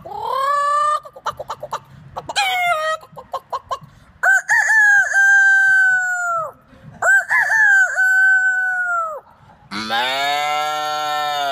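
A man's vocal imitation of chickens: quick clucking, then two long rooster crows in a row. Near the end he switches to a lower, fuller held call.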